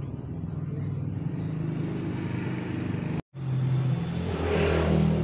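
An engine running steadily, growing louder about four seconds in, with a brief dropout of all sound just after three seconds in.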